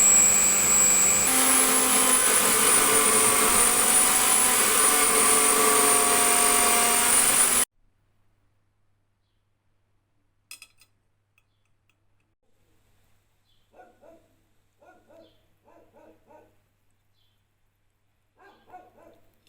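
A high-speed power tool runs steadily with a high whine over a rough, hissing noise; its pitch steps up a little about a second in. It cuts off abruptly about seven and a half seconds in, leaving only a faint click and a few quiet scraping or handling sounds.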